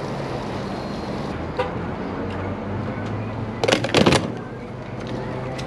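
An engine idling steadily with a low hum. A brief clatter of sharp knocks sounds about four seconds in.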